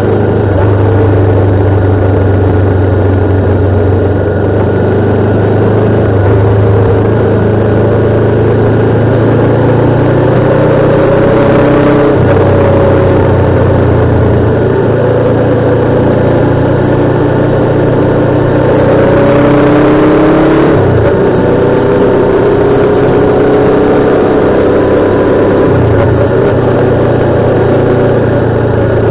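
Motorcycle engine running at speed around a road circuit, its note rising and falling with the throttle through the corners, with a few sudden steps in pitch.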